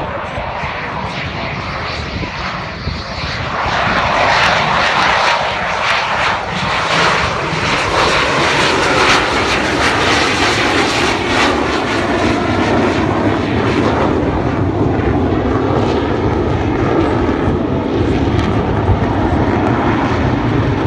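F-16 fighter jet's engine roaring through a low pass. It swells loud about four seconds in, is strongest midway, and turns to a deeper rumble toward the end as the jet pulls away.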